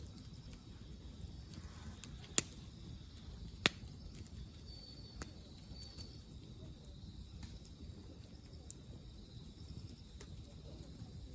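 A few sharp knocks over a low, steady outdoor background: two loud ones about two and a half and three and a half seconds in, then a few fainter ones.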